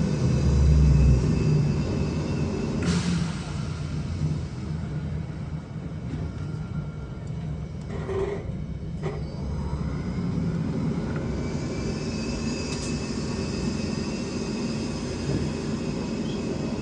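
Interior noise of a VMZ-5298.01 trolleybus under way: a steady low rumble with a few faint steady tones above it, and a short sharp click about three seconds in.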